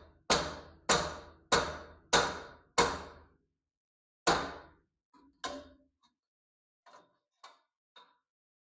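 Hammer blows on a metal roll-cage bar, knocking the tightly fitted tube into position to level it. Six heavy strikes come about every half second, each ringing briefly, then one more, then a few lighter taps near the end.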